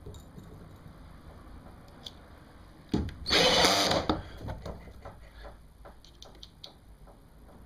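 Power drill running for about a second, driving a self-tapping screw into the kayak's plastic hull to fasten a gear track rail, followed by small clicks from handling.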